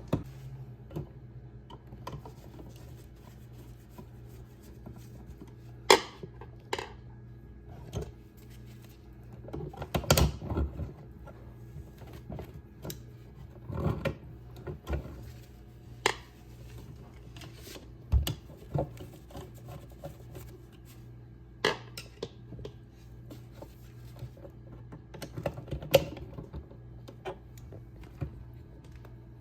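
Scattered, irregular clicks and taps of hand tools and metal on the terminal screws and copper wires of a wall receptacle as the wires are unwrapped from the screws, over a steady low hum.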